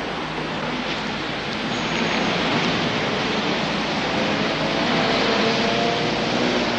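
Steady rushing noise of a car driving or road traffic, growing slightly louder, with a faint pitched hum coming in near the end.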